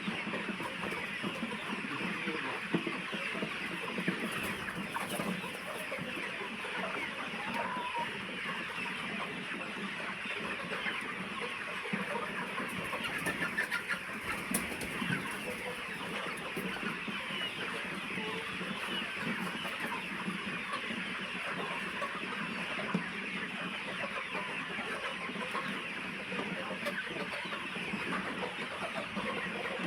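A large flock of chickens clucking and calling all at once, a steady dense chatter of many birds.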